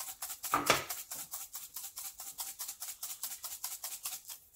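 Crushed red pepper flakes being shaken from a spice container in fast, even shakes, about eight or nine a second, with one harder shake near the start. The shaking stops just at the end.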